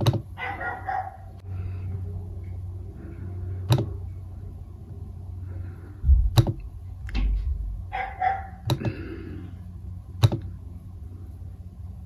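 Sharp computer mouse clicks, about six of them one to three seconds apart, clicking through a driver installer's screens over a steady low hum. There is a low thump around six seconds in, and two short muffled bursts of sound, about half a second in and near eight seconds.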